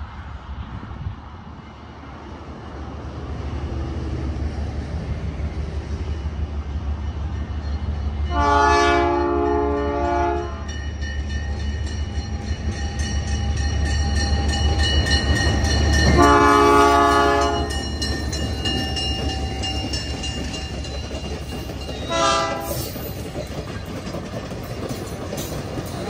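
ALCO RS-11 diesel locomotive approaching and passing, its V12 diesel engine a steady low rumble that grows louder as it nears, with the wheels clacking over the rail joints as the cars go by. Its horn sounds two long blasts about seven seconds apart and then a short one, the pattern of a grade-crossing warning.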